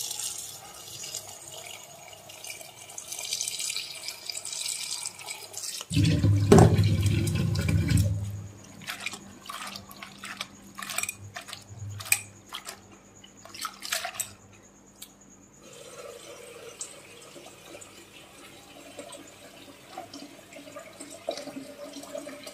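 Kitchen tap running into a steel bowl of chopped poi (Malabar spinach) leaves in a stainless-steel sink, with a loud low splash about six seconds in. This is followed by hands swishing and splashing the leaves in the water. After about fifteen seconds it goes quieter, with faint drips and handling.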